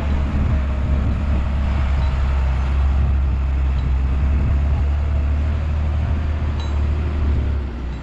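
Heavy diesel engine of an earthmoving machine running steadily with a deep drone, easing slightly near the end.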